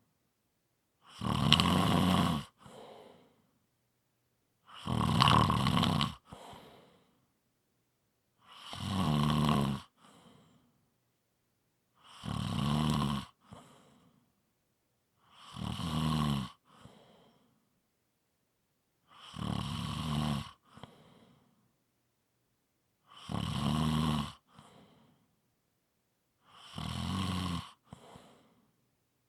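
A person snoring in a steady rhythm, eight snores about every three and a half to four seconds. Each is a loud pitched snore of about a second followed by a short, softer breath, with silence between.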